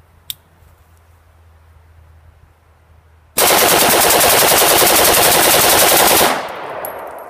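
AR-15 with a Wolf A1 gas-piston upper, a Taiwanese Type 91 pattern, firing 5.56 in full auto. It fires one continuous burst of about three seconds at a steady rhythm, and the echo fades away afterwards.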